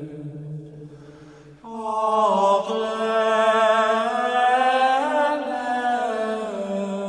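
Slow chant on the soundtrack: a single melodic line sung on long held notes, with a new phrase starting about one and a half seconds in.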